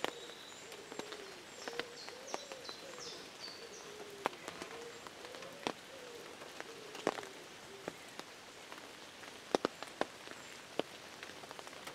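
Rain falling, with irregular sharp drops striking a surface over a steady patter. A bird sings a short run of falling high notes about a second and a half in, and a low wavering bird call repeats several times through the first two-thirds.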